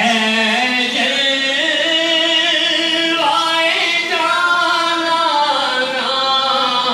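A man singing an Urdu naat into a microphone, drawing out long held notes that step up and down in pitch.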